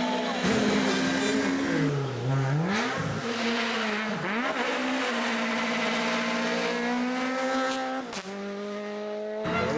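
Rally car engine at high revs, dropping sharply twice as it slows for a corner, then accelerating away with rising pitch. A brief break about eight seconds in, after which the pitch climbs again, as at a gear change.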